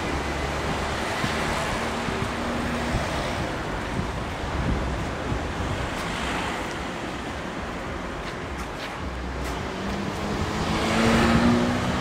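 Road traffic noise with wind on the microphone; a car passes close near the end, the loudest moment, its engine hum standing out.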